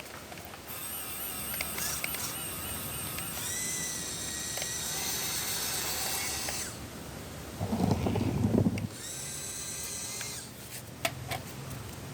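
Small electric motors of a miniature RC model Kubota DC-105X combine harvester whining, the pitch wavering, then stepping up and holding steady. A louder, lower burst comes about eight seconds in, then the whine resumes and a few sharp clicks follow near the end.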